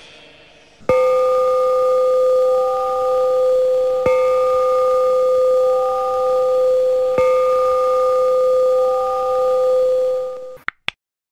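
A metal bowl bell struck three times, about three seconds apart, each strike ringing on in a steady, slightly wavering tone. The ringing cuts off suddenly near the end and is followed by two quick clicks.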